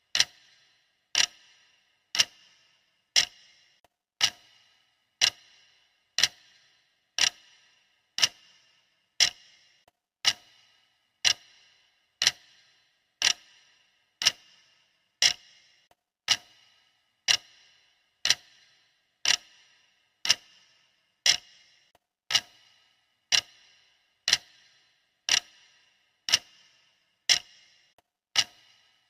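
Clock ticking steadily, one sharp tick about every second, each with a brief metallic ring.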